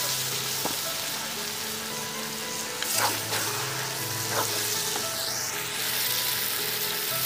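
Small spiny eels sizzling in hot oil and onion-spice paste in a karahi, just after being added to the pan. A metal spatula clicks against the pan a few times.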